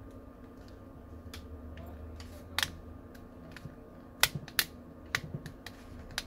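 Plastic clicks and snaps as a plastic opening tool pries the inner frame off an LG Leon H340N phone, its clips releasing around the edge. A scattered series of sharp clicks, with several in quick succession between about four and six seconds in.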